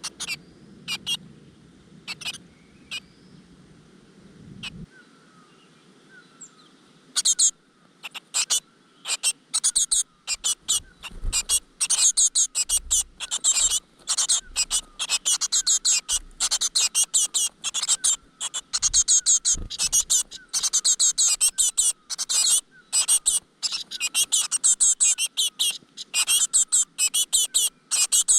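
Great tit nestlings begging for food: a few scattered high chirps, then from about seven seconds in a loud, dense chorus of rapid high-pitched cheeping that keeps going.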